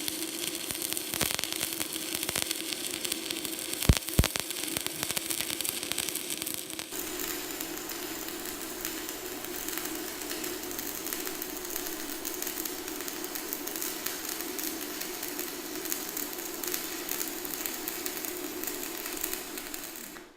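Stick welding arc crackling and sizzling steadily as a 1/8-inch 6013 general-purpose electrode burns at 110 amps on a PRO-TEC 160S inverter welder, with a steady hum underneath. A couple of sharp cracks come about four seconds in, and the sound cuts off suddenly at the end.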